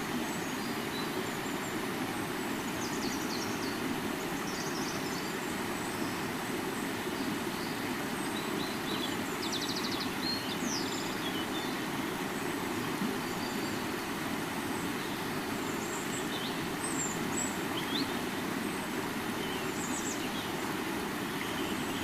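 River water flowing steadily, a continuous rushing noise, with scattered high chirps and short trills over it, the clearest a rapid trill about ten seconds in.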